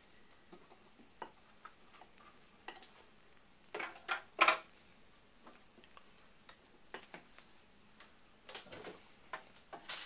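Light metal clinks and ticks, with two louder clanks about four seconds in and a short cluster of knocks near the end, like pots and metal tools being handled.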